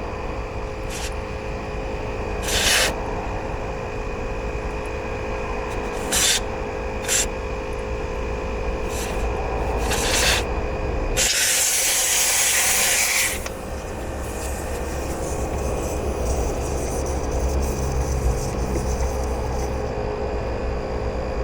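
Air hissing at a motorhome tyre valve in several short spurts, then one longer hiss of about two seconds, with rubbing and handling noises around it.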